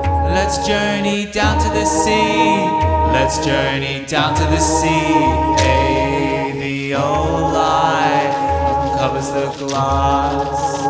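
Music: chant-like vocals held over sustained layered tones, with a low bass that comes and goes about every second.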